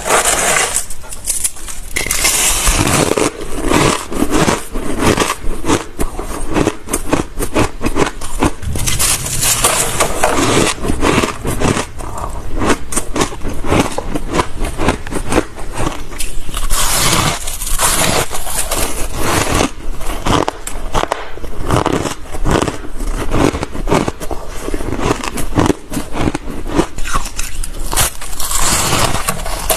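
Close-up bites into squeaky, fluffy ice, a fast, dense run of crunching and crackling with squeaks as the teeth compress the ice, one bite after another.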